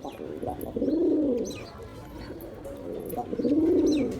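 Male pigeon cooing to court a female: two long coos that rise and fall in pitch, about two and a half seconds apart, with softer shorter coo notes around them.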